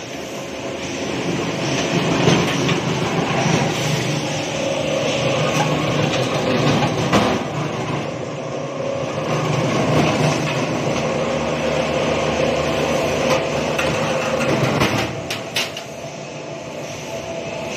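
Licorice root diagonal slicing machine running and cutting roots fed into it, a steady mechanical hum and rattle. A few sharp clicks about fifteen seconds in, after which it runs quieter.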